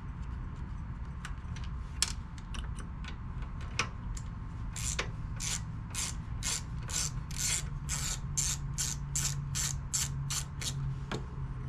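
Socket ratchet clicking on a lawnmower's 8 mm carburetor bolt. A few scattered clicks come first, then about halfway in a steady run of about three clicks a second lasts several seconds.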